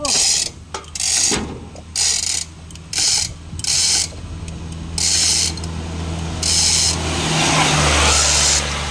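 Manual chain block hoist being worked: its chain rattles through the ratchet in short rasping bursts, about one a second. A steady low hum runs underneath.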